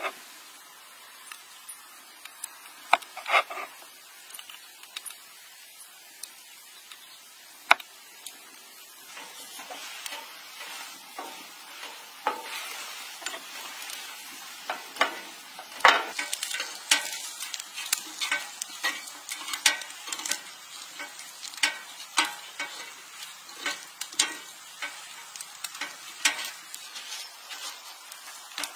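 A knife cutting through food on a wooden cutting board gives a few sharp taps in the first seconds. From about nine seconds in, slices sizzle on a hot griddle pan, with frequent clicks and taps as chopsticks lay them down and turn them against the pan.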